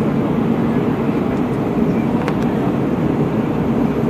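Steady low roar of an Airbus A319 heard from inside the cabin: engine and airflow noise with a faint steady hum.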